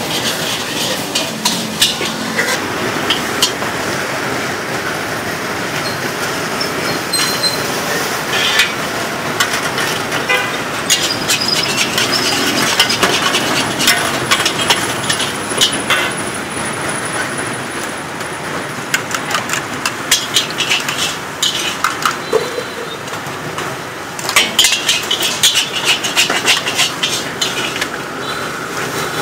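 Metal ladle scraping and clanking against a steel wok as noodles are stir-fried, repeated sharp clinks over a steady hum of street traffic.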